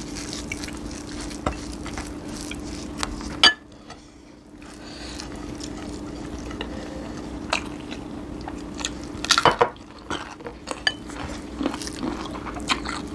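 Scattered clinks and taps of plates and a serving spoon at a meal eaten by hand, with a sharp clink about three and a half seconds in and a quick cluster of clatter near nine and a half seconds, over a steady low hum.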